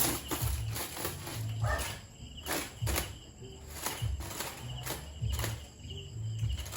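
A series of light knocks, clicks and dull thumps from handling at the grill, about two a second, over crickets chirping steadily in the background.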